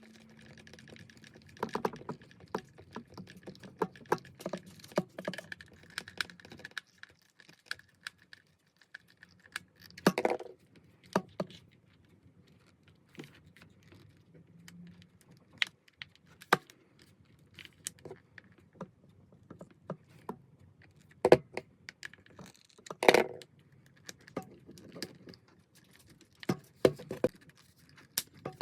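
Irregular clicks, taps and light rattles of small hard objects being handled, with a few louder knocks about ten, twenty-one and twenty-three seconds in.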